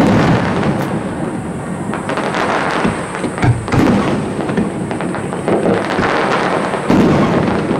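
Aerial firework shells bursting in quick, overlapping succession: a continuous rumble of booms and crackle, with sharper bangs near the start, about halfway through and near the end.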